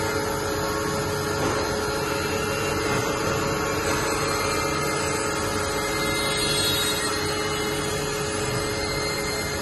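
Supertec G25P-50CNC cylindrical grinder grinding a spinning workpiece under flowing coolant: a steady machine noise of spindle and grinding with a few held tones, and no change in level.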